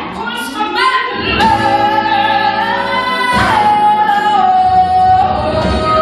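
A woman belting a show tune: about a second and a half in she holds a long high note with vibrato, then steps down to lower held notes, over instrumental accompaniment.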